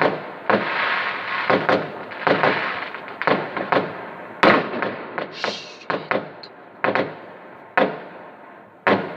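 Fireworks going off: a rapid series of sharp bangs, each with an echoing tail, over a background crackle. The crackle thins out and the bangs come further apart toward the end, with the loudest about four and a half seconds in.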